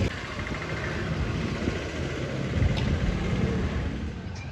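Street traffic: a steady rumble of vehicle engines passing along the road below.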